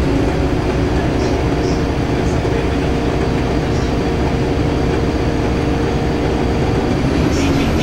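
Scania K280UB city bus under way, heard from inside the passenger saloon: a steady drone of its rear-mounted engine mixed with road and tyre noise. The engine note shifts near the end.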